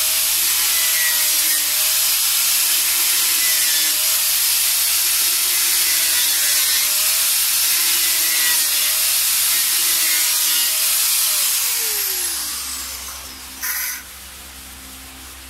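Small electric grinder cutting the rough excess edge off a fibreglass helmet shell: a steady grinding noise with a motor whine that dips and recovers again and again as the disc bites into the material. About three-quarters of the way in it is switched off and the whine falls away as it spins down, then there is one short scraping burst.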